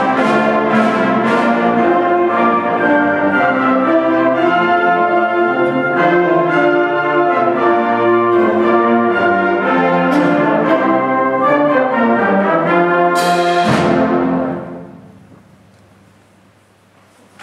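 Symphonic wind band playing the closing bars of a piece: loud, sustained brass-heavy chords, then a final crash about thirteen seconds in that cuts the music off. The last chord dies away in the hall's reverberation.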